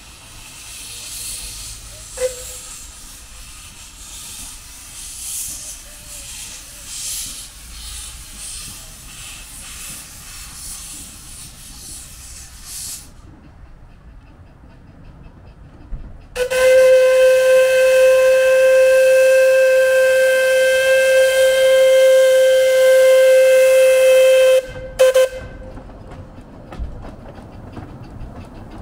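Steam locomotive Lady Jane Grey hissing steam for about the first dozen seconds, the hiss cutting off abruptly. A few seconds later its steam whistle gives one long, steady blast of about eight seconds, the loudest sound here, followed by a short second toot as the train prepares to depart.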